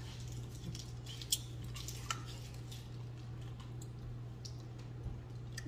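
Quiet room with a steady low hum and a few faint, short clicks.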